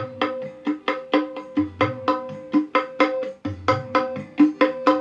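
Music with quick, even hand-drum beats and recurring deep bass notes, played through a 12-inch speaker driven by a modified SOCL 506 amplifier.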